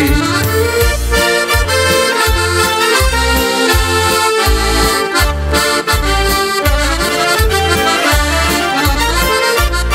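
Accordion playing an instrumental passage of a folk song, the melody over a steady bass beat of about two beats a second.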